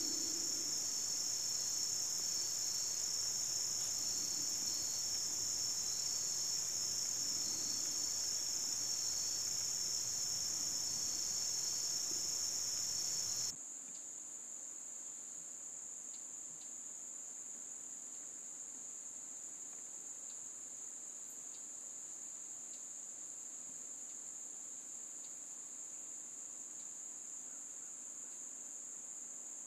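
Steady, high, continuous chorus of crickets, with a fainter pulsing chirp beneath it. About halfway through it cuts abruptly to a quieter, slightly lower-pitched insect chorus.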